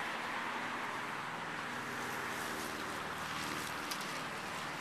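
Road traffic passing: a steady rush with a low engine hum, and some wind on the microphone.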